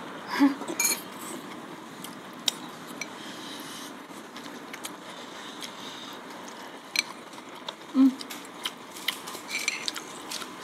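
Metal forks clicking against glass bowls at scattered moments, with noodle slurping and mouth sounds of eating.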